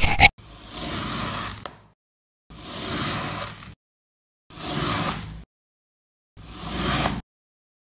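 Large kitchen knife slicing down through a block of moulded sand, four strokes, each about a second long and roughly two seconds apart. A short sharp sound comes right at the start.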